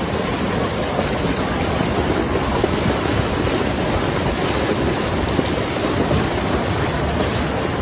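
Flash-flood torrent: fast-moving floodwater rushing steadily and loudly, without a break.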